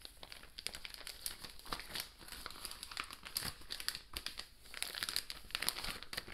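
Plastic vacuum-sealer bag crinkling in quick, irregular crackles as a raw ribeye steak is slid into it and the bag is handled.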